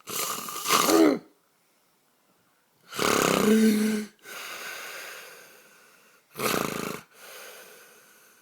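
A man snoring loudly in his sleep: three loud snores, each about a second long and roughly three seconds apart, the second and third each followed by a softer breath out that fades away.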